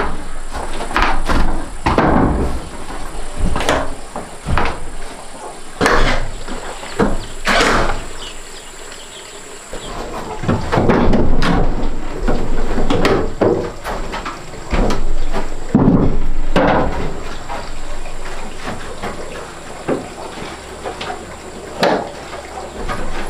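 Wooden doors and planks being handled and set down: irregular knocks and clunks of wood on wood, with denser clattering stretches.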